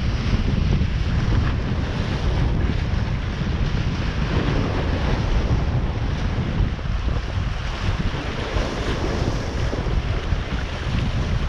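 Wind buffeting the microphone over waves washing on the water: a steady, fluctuating rumble and hiss.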